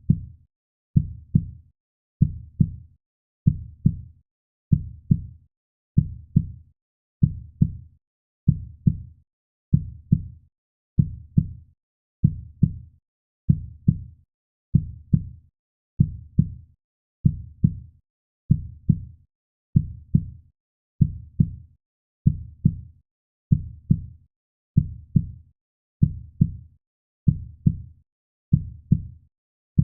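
Heartbeat sound for soothing a baby to sleep: a low, steady lub-dub double beat repeating evenly, just under once a second.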